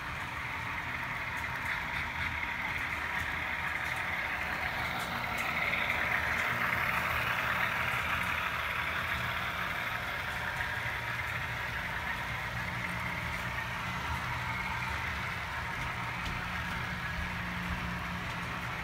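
HO scale model freight train running on the layout: a steady rolling noise of wheels on track with a low motor or engine hum underneath, growing louder for a few seconds near the middle before easing back.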